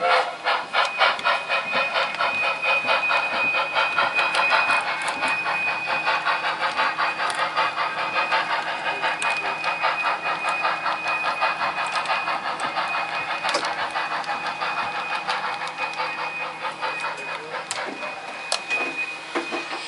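Sound-equipped model steam locomotive running while switching cars, its rapid, even chuffing continuing throughout, with a thin steady whine from about a second in until near the end.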